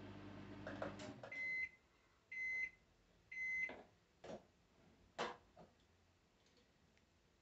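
A microwave oven's hum cuts off about a second in, followed by three evenly spaced high beeps signalling that it has finished. Two sharp knocks and a few faint clicks follow.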